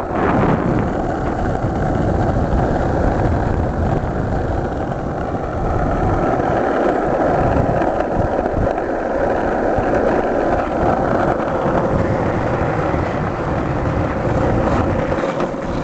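Skateboard wheels rolling over rough asphalt: a steady, loud rumble as the board is towed along by a dog.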